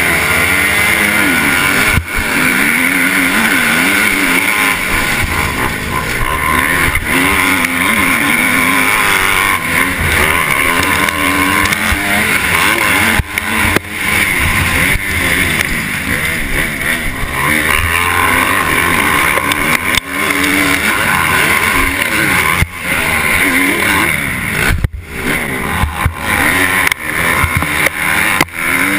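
Motocross dirt bike engine revving hard and climbing through the gears, pitch rising and dropping over and over, as it launches from the starting gate and races around the track, heard close up from a helmet-mounted camera. A steady rush of wind noise runs underneath, with a few sharp knocks.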